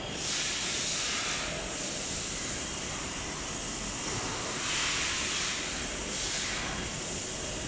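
Steady rushing hiss of industrial fans and blowers on a screen-printing line's tunnel drying ovens, swelling louder a few times.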